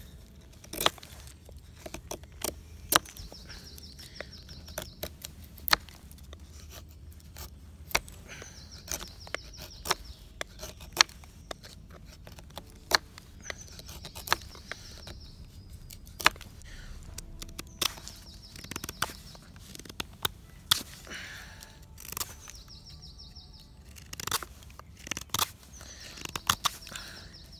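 Knife blade carving a wooden stick, shavings sliced off in short sharp cuts, irregular, about one a second.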